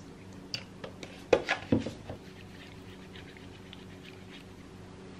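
Kitchen utensils and dishes clicking and knocking lightly as French toast is prepared, a handful of knocks in the first two seconds, the loudest about a second and a half in, then faint ticking. A steady low hum runs underneath.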